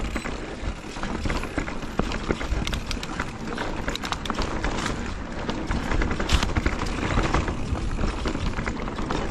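Mountain bike riding fast down a dirt forest trail: tyres rolling over dirt and roots, with the bike's chain and frame rattling and clicking over the bumps, and wind buffeting the camera microphone.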